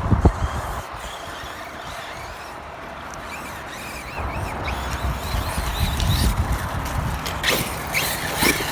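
Battery-powered RC monster truck running over dirt, its motor and tyres making a steady rumble that grows louder about halfway through. There are sharp knocks from impacts about a quarter second in and again near the end.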